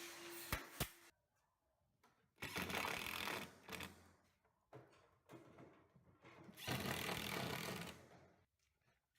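A power tool working wood, run in three short bursts of about a second each, with a rapid buzzing texture. Before the bursts, an earlier running sound cuts off about a second in, after two sharp clicks.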